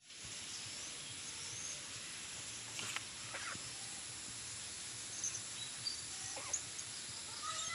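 Quiet outdoor garden ambience: a steady high hiss with a few brief, high chirps from small birds scattered through it, and a longer wavering animal call starting right at the end.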